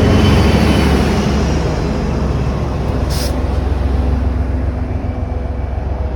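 HSP46 diesel-electric commuter locomotive running with a loud, steady low rumble, with a short burst of air hiss about three seconds in.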